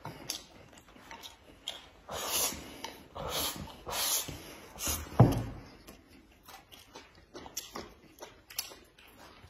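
A man slurping from a bowl: four loud, drawn-in slurps over about three seconds, then a single knock about five seconds in, likely the bowl put down on the table, followed by faint small clicks.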